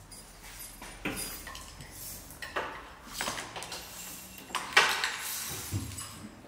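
Hand tools clinking and clanking against metal in an engine bay: a handful of separate metallic clanks and rattles, the loudest about five seconds in.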